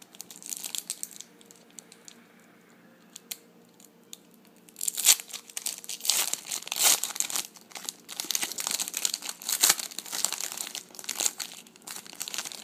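Foil trading-card pack wrapper being torn open and crinkled by hand: a few crackles at first, then, after a quiet spell, a dense run of sharp crinkling from about five seconds in.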